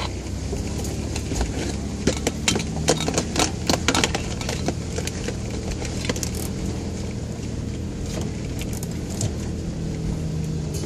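A third-generation Toyota 4Runner's engine running low and steady, heard from inside the cab as it crawls along a rough dirt trail. Clicks and rattles from the jostled cabin come thickest in the first few seconds, then grow sparse.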